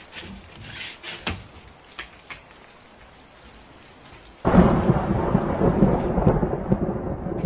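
Light rustling and taps, then about four and a half seconds in a sudden loud clap of thunder that carries on as a heavy rumble with rain.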